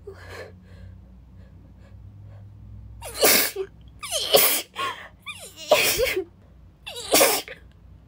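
A woman sneezing four times in quick succession, about a second apart, after a few seconds of faint gasping breaths as the sneezes build.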